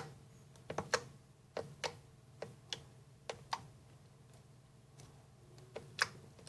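Slime being squeezed and worked in the hands, giving off a string of sharp little clicks and pops, often two in quick succession, with a pause of about two seconds midway. This is the slime's clicking sound back again after a week untouched, having been very stiff.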